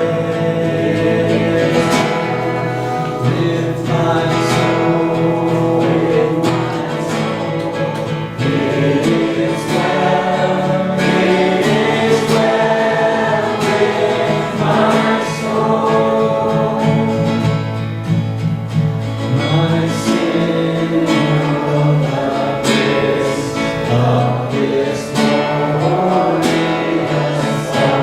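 Worship music: several voices singing a song together over guitar accompaniment.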